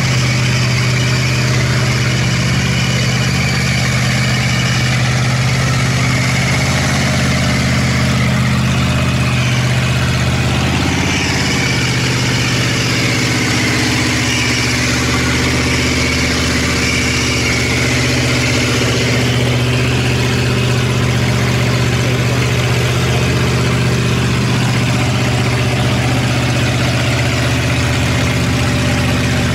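Mud truck's engine running steadily at low revs, a constant deep drone, as the truck on tractor tires crawls through thick mud. A higher hiss joins for a stretch in the middle.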